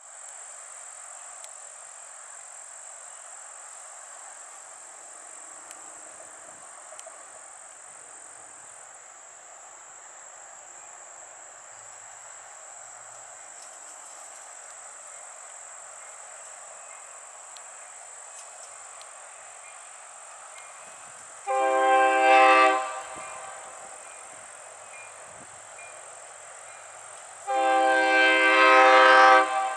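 Train horn sounding two long blasts, the first about two-thirds of the way in and a longer one near the end, over a steady outdoor background with a thin high-pitched tone.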